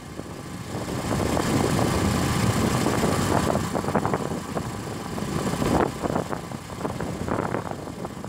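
Motorcycle engine running steadily at road speed, with wind buffeting the microphone in uneven surges.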